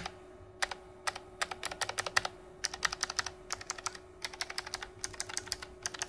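A4Tech Bloody B2278 gaming keyboard being typed on fast: rapid clicking keystrokes in three runs with brief pauses between them.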